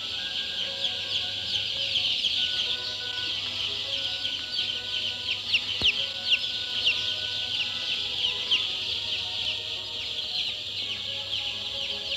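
A dense chorus of newly hatched chicks peeping: many high, short, downward-sliding cheeps overlapping without a break.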